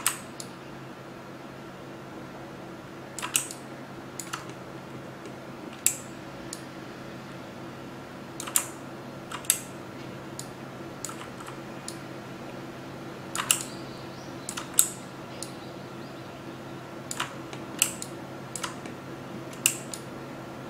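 Irregular clicks of a computer mouse and keyboard, single or in quick pairs every second or so, over a steady low hum.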